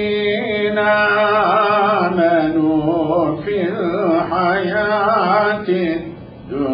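A man chanting Quranic recitation, drawing out a long ornamented melodic phrase with wavering pitch. He breaks off briefly near the end, then goes on.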